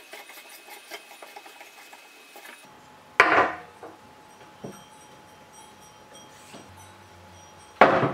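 Metal lamp parts being taken apart by hand: light rattling and clicking, then a loud knock about three seconds in and another near the end, with a few softer knocks between.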